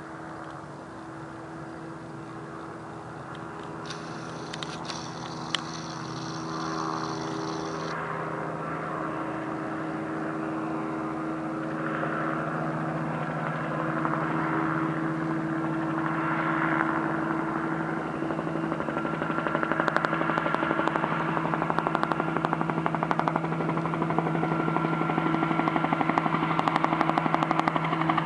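Bell 47J2-A helicopter in flight, its piston engine's steady hum and main-rotor beat growing louder as it approaches. Over the last several seconds the rotor beat becomes a rapid, even chop.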